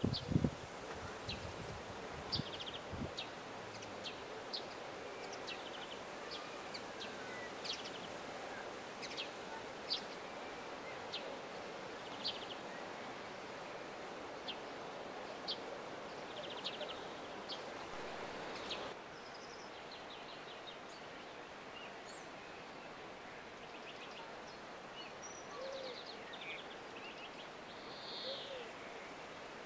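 Outdoor ambience: a steady soft hiss of wind in the grass and foliage with small birds chirping in short, repeated calls about once a second. About two-thirds of the way through the background turns slightly quieter, with fainter birdsong and a few soft low hoots near the end.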